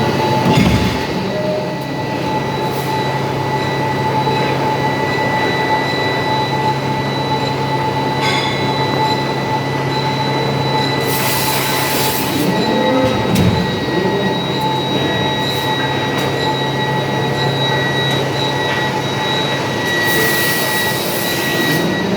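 Forging shop machinery at a 1600-ton CNC screw press: a steady machine hum with a high whine running under it. Two bursts of hissing come about eleven and twenty seconds in, and there is a knock around thirteen seconds in.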